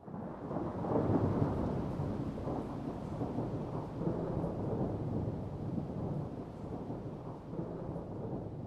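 A long rumble of thunder that starts suddenly, is loudest about a second in and slowly dies away.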